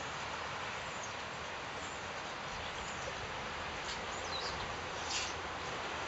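Steady hiss of outdoor background noise, with a few short, high calls from a flock of foraging European starlings in the second half. One call falls in pitch about four seconds in, and a brief, louder call comes a little after five seconds.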